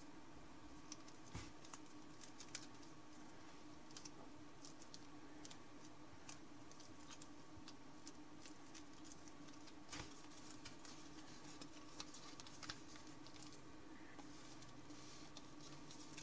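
Faint crackling and rustling of thin origami paper being folded and creased by hand: a scatter of small, sharp crackles over a steady low hum.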